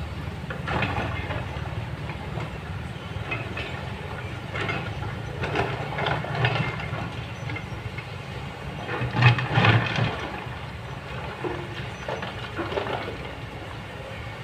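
Kobelco long-reach excavator's engine running steadily while its bucket scrapes and clatters through rock several times. The loudest rattle of stones comes about two-thirds of the way in.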